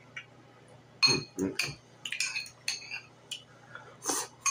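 Metal fork clinking and scraping several times against a glass bowl while scooping up collard greens, then a forkful taken into the mouth with wet eating sounds near the end.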